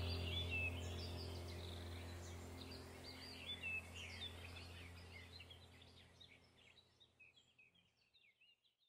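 Background nature-ambience track: many short bird chirps over a low steady hum, the whole fading out gradually to silence by the end.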